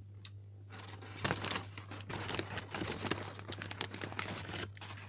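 Brown paper takeaway bag crinkling and rustling as a hand rummages inside it, starting about a second in and running for about four seconds.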